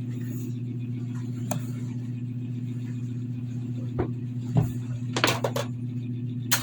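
A steady low hum, with a few sharp clicks and knocks scattered through it, clustering about five seconds in.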